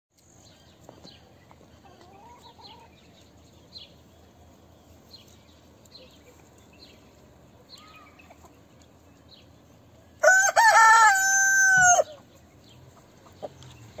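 A rooster crowing once, a loud call of about two seconds that ends on a long held note, about ten seconds in. Faint short chirps of small birds are scattered throughout.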